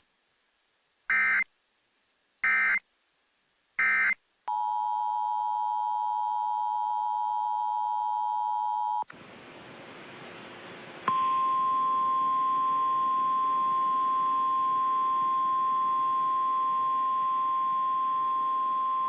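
Emergency Alert System signalling: three short, harsh digital data bursts about a second and a half apart, the end-of-message code. Then the two-note EAS attention signal is held for about four and a half seconds, followed by a couple of seconds of radio hiss. From about eleven seconds in, the single steady tone of the NOAA Weather Radio warning alarm sounds.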